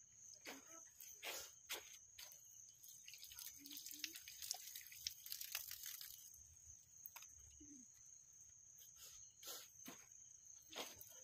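Faint, steady high-pitched insect trill, with scattered soft clicks and taps.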